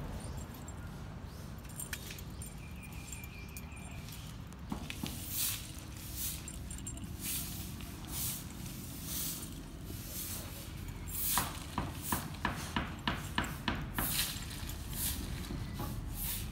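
Brindle puppies heard close up as they nose at a hand and are petted: soft rustles, then quick snuffling sounds about two or three a second in the second half, over a steady low rumble of handling.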